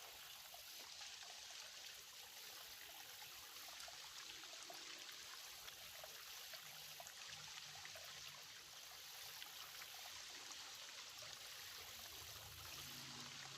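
Small, shallow creek flowing: a faint, steady trickle of running water.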